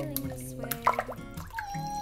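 Background music with held notes, and one sharp click a little before halfway through.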